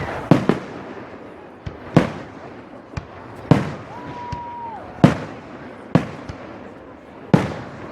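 Fireworks shells bursting overhead: a string of sharp bangs at irregular intervals, roughly one every half second to a second, each trailing off in a short echo. A brief held tone sounds about four seconds in.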